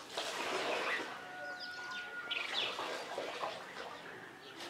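Birds chirping in short calls, with one steady whistled note held for about a second, a little over a second in.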